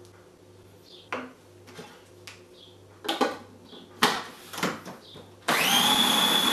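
Several hard plastic knocks as custard is tipped from a small jug into a food processor bowl and the lid is handled. Then, near the end, the food processor's motor switches on and runs steadily with a high whine, blending the lumpy custard smooth.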